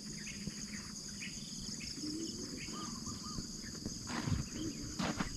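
A steady, high-pitched chorus of insects trilling without a break, with scattered short chirps over it. Two soft knocks come near the end.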